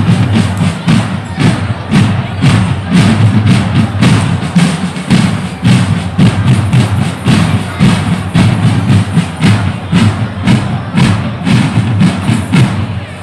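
Military drum-and-fife corps' drums playing a dense marching pattern, with heavy bass-drum beats over rapid snare strokes.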